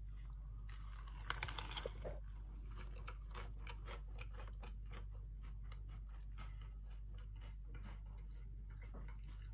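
Biting into a burrito with a pan-toasted tortilla and chewing it close to the microphone. A crunchy bite comes about a second and a half in, followed by a long run of chewing clicks.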